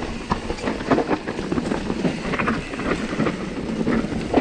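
Mountain bike clattering down a rough trail, with quick irregular knocks and rattles as the tyres and frame are shaken over the ground.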